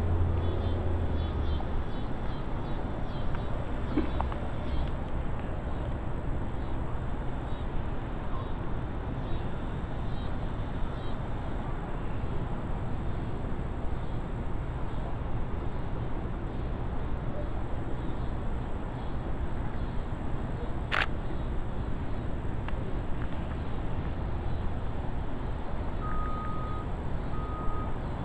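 Steady low outdoor background noise with one sharp click about three-quarters of the way through. Near the end a reversing alarm starts beeping, a single steady tone repeating about once a second.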